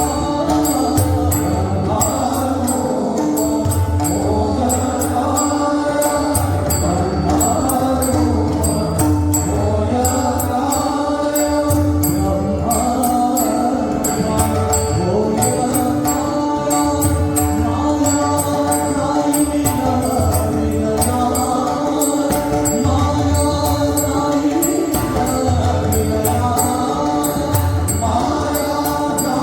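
Marathi abhang bhajan: a male devotional voice singing, accompanied by pakhawaj and tabla drumming in a steady rhythm.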